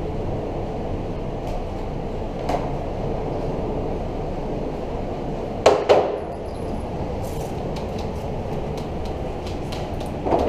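A steady low rumble of background noise, with a few sharp knocks on top. The loudest is a quick pair about halfway through, followed by light clicks and clinks.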